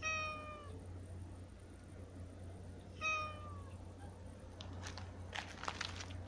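Tabby-and-white cat meowing twice, two short calls about three seconds apart, each sliding a little down in pitch. Near the end, a run of short crackling clicks.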